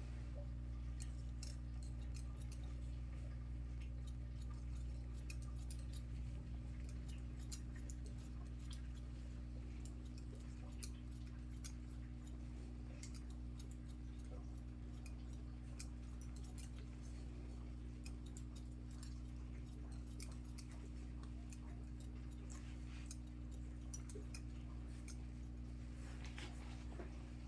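Barber's scissors snipping hair in quick, irregular cuts, over a steady low hum.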